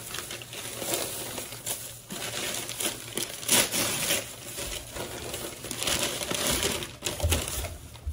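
Crinkling and rustling of packaging being handled, in irregular bursts, the loudest about three and a half seconds in, with a dull low bump near the end.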